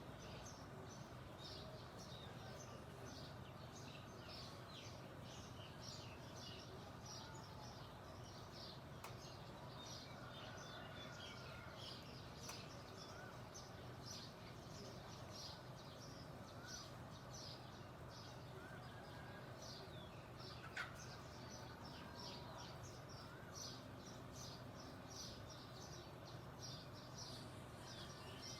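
Songbirds chirping continuously: a fast, dense run of short, high, downward-sweeping chirps over a faint steady low hum. One sharp click stands out about two-thirds of the way through.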